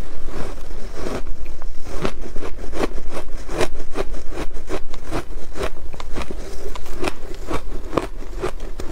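Ice being bitten and chewed, a steady run of sharp, loud crunches at about three to four a second.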